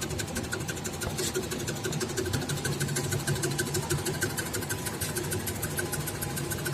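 Onion and cassava slicing machine running: a steady mechanical hum with a fast, even rhythm of clicks.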